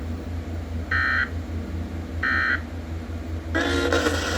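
Emergency Alert System end-of-message data tones: two short bursts of two-tone digital warble about a second and a half apart, marking the end of the alert. A steady low hum runs underneath, and about three and a half seconds in the radio station's regular audio cuts back in loudly.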